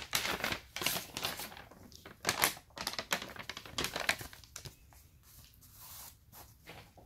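A paper instruction leaflet being folded by hand, crinkling and rustling in a run of short bursts that die down after about five seconds.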